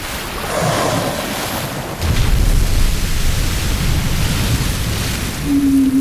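Open-sea ambience: an even rushing of waves and wind that swells just after the start and deepens with a heavy low rumble about two seconds in. Just before the end a low held tone comes in.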